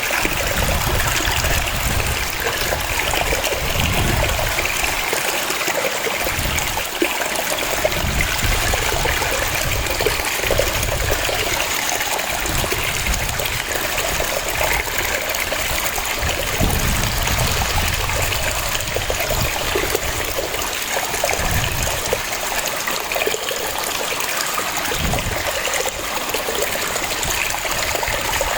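Waterfall: water cascading and splashing, a steady rush with an uneven low rumble.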